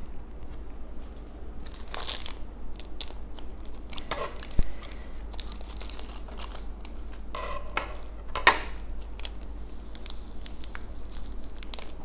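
Plastic seasoning sachets crinkling and rustling as they are handled and cut open with scissors, with two sharp clicks, one about four and a half seconds in and another near eight and a half.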